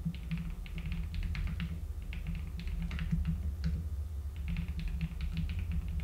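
Typing on a computer keyboard: runs of quick keystrokes broken by short pauses as code is entered.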